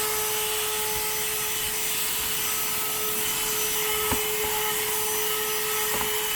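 CherylonPower mini cordless handheld vacuum running with a steady high motor whine while its nozzle rubs over car carpet, sucking up food crumbs. A sharp click about four seconds in and a lighter one near the end.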